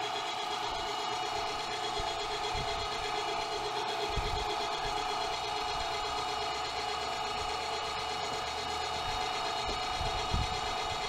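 MEAT! Your Maker electric meat grinder running steadily under load, pushing ground venison through the fine grinding plate, with a couple of low knocks about four seconds in and near the end.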